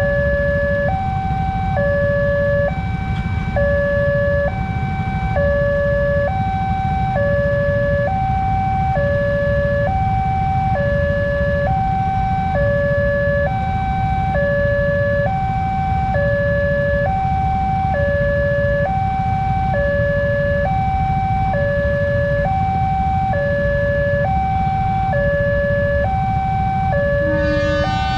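Railway level-crossing warning alarm sounding while the barrier is down: an electronic two-tone signal alternating between a higher and a lower tone, about one second each, repeating steadily over a low rumble. Near the end a second, richer tone with many overtones joins in.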